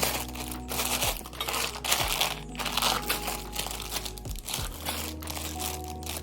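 Plastic packaging wrap crinkling and crumpling as it is handled and pulled about, in irregular rustling bursts.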